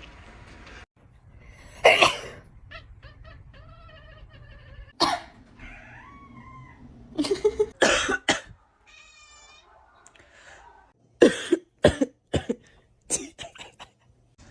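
People coughing, singly and in short runs of two or three coughs, with cats meowing in between. There is a higher, wavering meow about nine seconds in.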